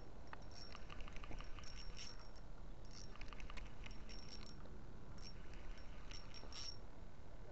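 Spinning reel being cranked by hand, a rapid soft clicking in two spells, with faint high chirps scattered over it.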